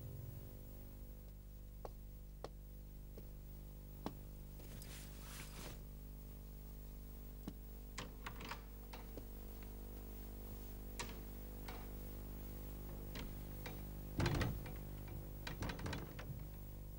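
A low steady hum or drone, with scattered light taps and clicks, and then a heavier thump followed by a few rattling knocks near the end.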